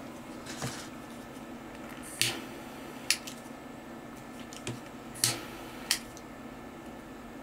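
Short rustles and clicks as fingers pull lengthwise threads out of a strip of organza ribbon: about six in all, two of them longer swishes and the rest sharp ticks, over a steady low hum.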